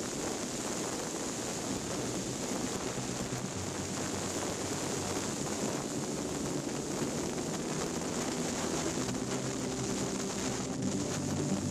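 A vehicle's engine running at a steady cruise under heavy wind and road noise as it drives along.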